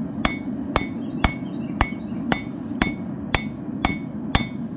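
Hand hammer striking a steel chisel set in a red-hot railroad spike clamped in a vise, about two blows a second, each with a bright metallic ring. The chisel is splitting the spike to open the eye of a tomahawk head. A steady low roar of the propane gas forge runs underneath.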